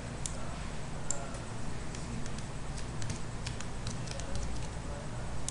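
Computer mouse clicking the camera's pan controls: a scatter of faint, light, irregular clicks, more of them in the second half, over a steady low room hum.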